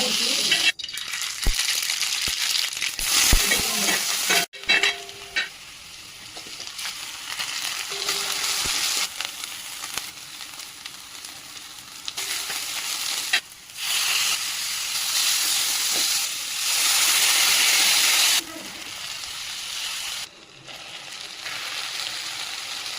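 Okra (bhendi) frying in hot oil in a pan, a steady sizzle that rises and falls in level with several abrupt jumps. A few sharp knocks come in the first five seconds or so.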